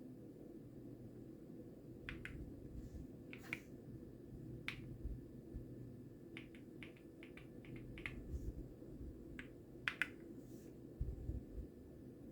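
Single key presses on a Keysme Lunar 01 mechanical keyboard with Gateron switches, a second or two apart, with a quick run of about eight presses in the middle. A faint steady low hum sits underneath.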